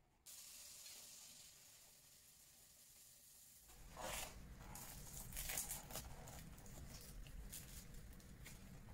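Faint crackling rustles of paper towel and a plastic glove as fried sfenj doughnuts are handled and lifted from a paper-lined bowl, in a few quick clusters. Before that, a faint steady hiss starts abruptly and fades.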